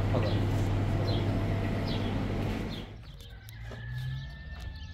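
A steady low engine hum that cuts off abruptly about three seconds in. After it, all is much quieter, with a thin steady whistle lasting about a second and a few light clicks.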